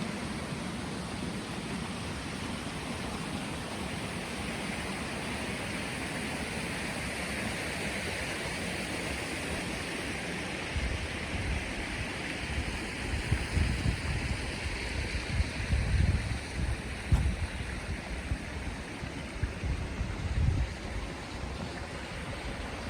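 Steady rush of running water. From about halfway on, irregular low rumbles come and go over it.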